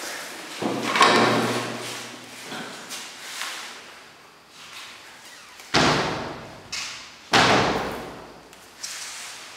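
Cupboard doors being handled: a rattling noise in the first couple of seconds, then two loud bangs about a second and a half apart as the doors are slammed shut.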